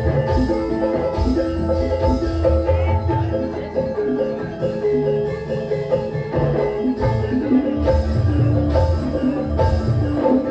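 Javanese gamelan music played loud through a sound system during a sound check: metallophones ring a quick, steady melody of held notes over repeated deep drum beats.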